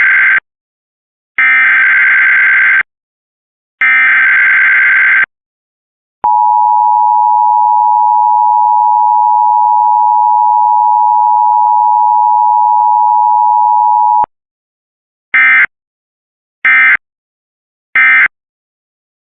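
Emergency Alert System digital SAME data bursts: three header bursts of warbling two-tone data, the first already under way, then the steady attention tone for about eight seconds. It ends with three short data bursts, the end-of-message code closing the alert.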